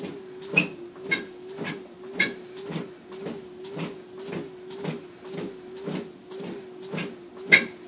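Steady walking footsteps, just under two a second, over a steady hum that dips slightly with each step; one step lands harder near the end.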